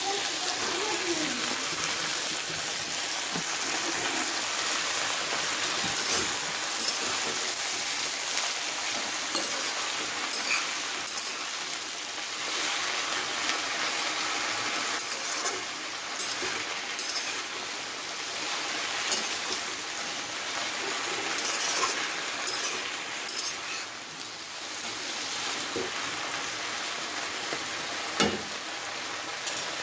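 Bottle gourd leaves and stems frying in oil in a wok with bottle gourd pieces: a steady sizzle, with the scrapes and clinks of a spatula stirring them against the pan, and a louder knock near the end.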